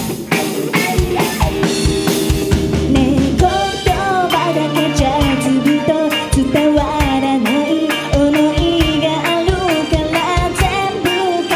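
A live rock band of drum kit, electric guitar, electric bass and keyboard plays loudly. A female lead vocalist comes in singing over the band about three seconds in.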